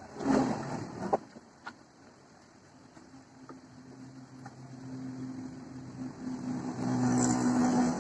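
A few knocks in the first two seconds, then a motor vehicle's engine with a steady hum that grows louder over several seconds.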